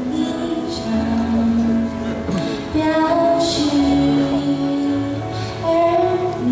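A woman singing a slow Mandarin pop ballad into a microphone over instrumental accompaniment, holding long notes that step up and down.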